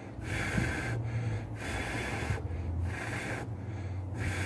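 A person blowing gently on a spark-caught ember in char cloth to spread the glow: about five steady, breathy puffs, each roughly half a second long.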